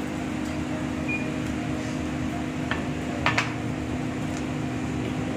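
Steady mechanical hum of room equipment, with a few light clinks of tableware around the middle.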